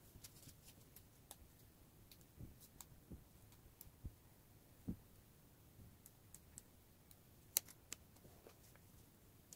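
Faint handling of paper and stickers: small clicks and crinkles as a sticker is peeled off a paper note on a kraft-paper-wrapped package, with a few soft taps and one sharper click late on.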